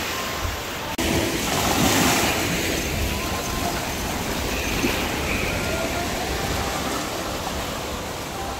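Surf washing up onto a sandy beach: a steady wash of breaking waves that swells louder about two seconds in.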